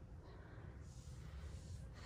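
Faint outdoor ambience: a steady low rumble with a soft hiss that swells about a second in and fades near the end. No distinct event.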